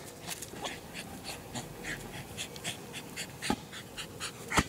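American Eskimo dog panting rapidly, about four or five quick breaths a second, with a sharp short sound about three and a half seconds in and a louder one near the end.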